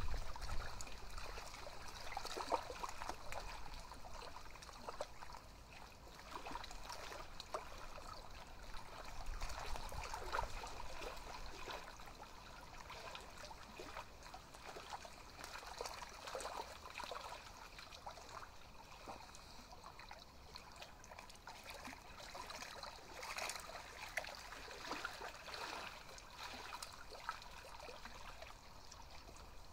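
Small ripples lapping at the shallow, stony edge of a lake: faint, irregular little splashes and trickles of water.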